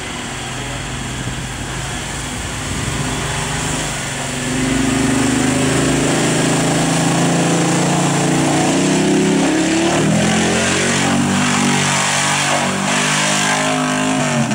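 SUV engine revving hard as the truck churns through a deep mud pit with its tyres spinning and flinging mud. The engine gets louder about four seconds in, and the revs rise and fall repeatedly in the second half.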